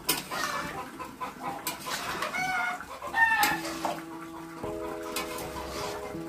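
A chicken clucking, with two short calls near the middle.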